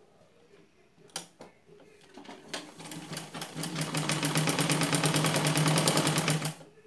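Domestic sewing machine stitching through fabric: two sharp clicks a little after a second in, then the machine picks up speed into a fast, even run of stitches and stops abruptly near the end.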